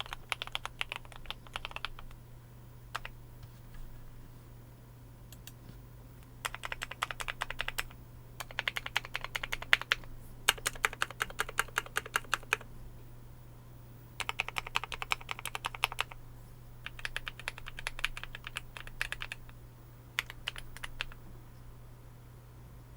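Typing on a Glorious GMMK Pro mechanical keyboard with Kailh Cream linear switches lubed with Krytox 205G2 and EVA foam inside, in bursts of rapid keystrokes with short pauses between.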